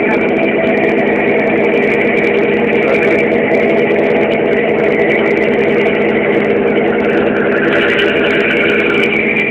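Ship's engine running at a steady cruise, a constant hum with even overtones under a wash of steady noise, heard on board while the vessel is underway.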